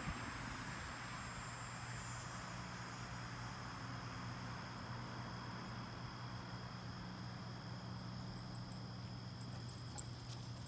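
Quiet outdoor ambience: crickets or other insects chirring steadily and high, over a low steady hum, with one faint tick near the end.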